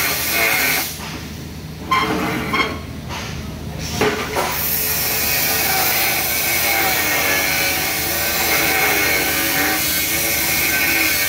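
TIG torch welding 4-inch carbon steel pipe while the cup is walked along the joint: a steady, harsh hiss with scraping as the cup rocks over the pipe, dropping away briefly twice in the first four seconds.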